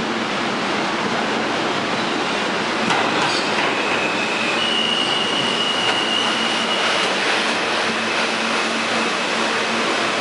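R160A subway train pulling into the station: a steady rumble of wheels on rail with a few clacks over the rail joints about three seconds in. A high, steady metallic squeal begins shortly after and is loudest in the middle, then carries on fainter as the train slows along the platform.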